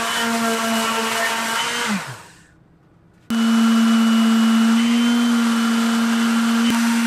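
INGCO palm sander running on plywood with a steady motor hum. About two seconds in it is switched off and winds down, falling in pitch, into a second of quiet. Then it starts again abruptly and runs steadily.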